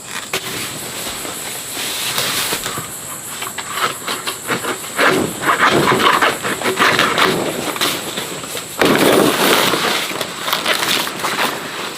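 Irregular rustling, hissing noise that surges and fades unevenly, loudest about five seconds in and again about nine seconds in.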